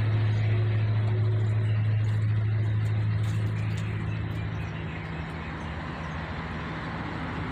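A steady low mechanical hum that eases a little about four seconds in.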